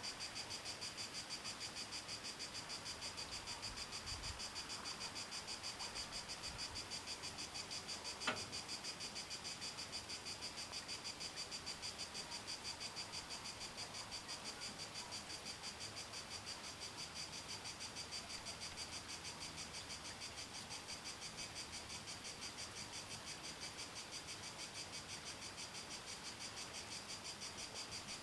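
Crickets chirping in a steady, high, evenly pulsing trill, several pulses a second. A single sharp click sounds about eight seconds in.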